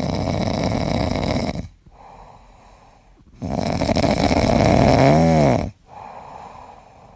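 A sleeping person snoring: two loud snores about three and a half seconds apart, each followed by a much quieter breath. Near the end of the second snore a pitched tone rises and falls.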